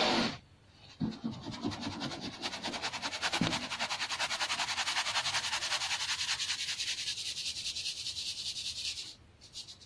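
Baking soda being sifted through a stainless-steel mesh strainer shaken rapidly back and forth, several strokes a second: a rhythmic hiss of fine powder passing through the mesh, with leftover lumps rattling in the sieve. A brief loud rubbing noise comes at the very start, and the shaking stops about nine seconds in.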